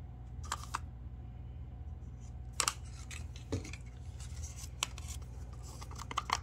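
A few light clicks and a soft knock from handling paint cups and a stirring stick, over a steady low hum. Near the end, a wooden craft stick starts stirring paint in a cup with quick, evenly spaced scraping strokes.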